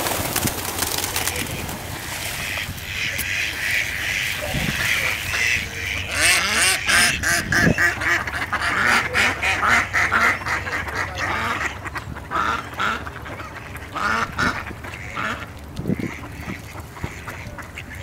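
Mallards quacking repeatedly, in quick runs of calls through the middle of the stretch. At the very start there is a brief loud rush of wingbeats as a flock of pigeons takes off.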